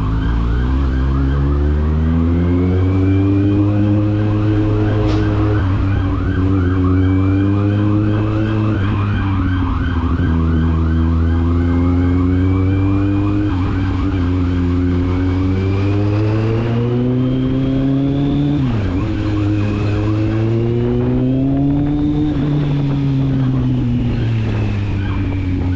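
Kawasaki Z750's inline-four engine and exhaust under riding, the revs climbing and falling again and again as it accelerates and changes gear, with a sharp drop in revs about two thirds in.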